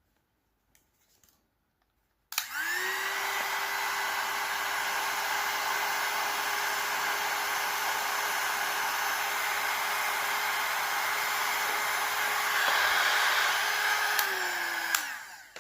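Hot-air heat gun switched on about two seconds in, its fan motor spinning up to a steady whine with a rush of air, shrinking heat-shrink tubing over a freshly crimped cable lug. It runs for about twelve seconds, then is switched off and winds down near the end.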